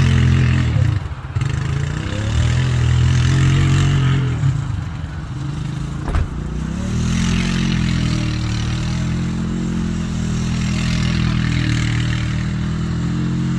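A small engine running, its pitch dropping and climbing again as it is throttled down and back up, with a single sharp click about six seconds in.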